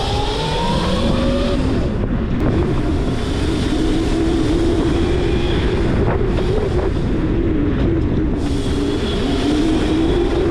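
Whine of a Razor MX650 electric dirt bike's 11,000-watt brushless motor, converted to 76 V, as it is ridden. The pitch rises as the bike accelerates during the first second and a half, then holds roughly steady while cruising, over a steady low rushing noise from the ride.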